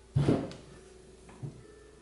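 Cast-iron Craftsman bench grinder being tipped onto its side on the workbench: a heavy clunk just after the start, then a lighter knock about a second and a half in.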